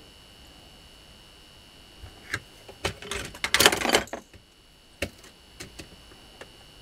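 Clicks and rattles of small metal hand tools being handled while working on a washing-machine motor's brush holder, with a denser, louder run of clattering about three to four seconds in.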